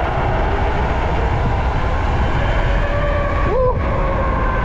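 Wind rushing over the microphone and tyre roar from a high-power electric bike (Fardriver-controlled, around 8000 W) riding fast, with the electric motor's whine sliding in pitch. About three and a half seconds in the throttle is let off: the whine gives a brief rise and drop, then slowly falls as the bike coasts.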